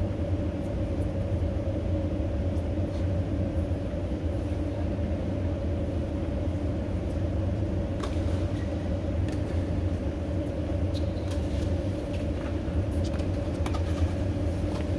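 A motor vehicle's engine running at a steady speed, a constant low drone with rumble, with a few faint clicks.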